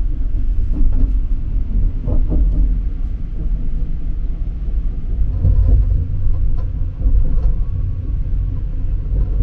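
Steady low rumble of a KTX-EUM high-speed electric train running at speed, heard from inside its toilet compartment, with a few faint knocks.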